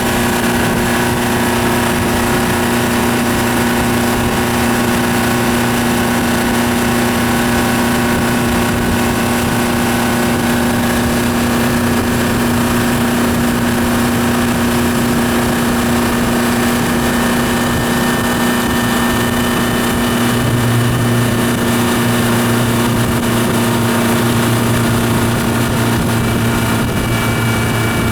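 Yamaha F150 four-stroke outboard motor (2.7-litre inline four) running at a steady, unchanging speed. Its pitch holds level throughout, and a lower hum in the engine note grows stronger about two-thirds of the way through.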